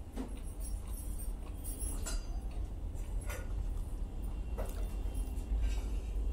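Close-up chewing of a chicken salami roll, with the aluminium foil wrapped around it crinkling in short crackles several times, over a steady low hum.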